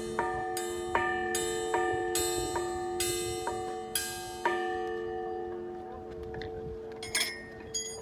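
Large bronze Time and Tide Bell struck by hand with a mallet: about ten strikes at roughly two a second, the last about four and a half seconds in, after which the tone rings on and slowly fades. A brief clatter comes near the end.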